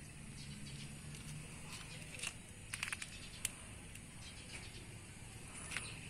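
Quiet outdoor background with a low steady hum, a few sharp clicks and taps in the middle, and faint bird chirps near the end.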